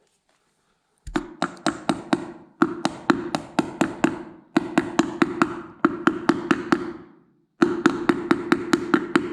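Hammer tapping a wheel bearing into a lawn mower wheel: quick, sharp taps about four or five a second in four runs with short pauses between, the metal ringing under each run. The first run begins about a second in.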